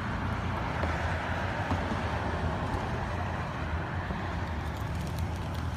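Steady road noise of a car driving along a street: a low engine and tyre rumble with a hiss of rushing air, heard from the moving car.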